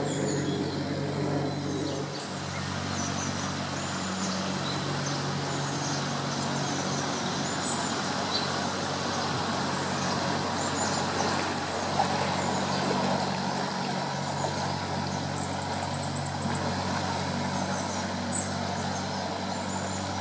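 Barge-style canal boat's inboard engine running steadily as the boat passes, with propeller wash churning the water and small birds chirping over it.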